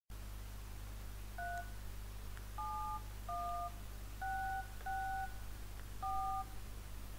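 Telephone touch-tone dialing: six keypad beeps, each a two-note DTMF tone of about half a second, dialing out a number before a call. A steady low electrical hum sits underneath.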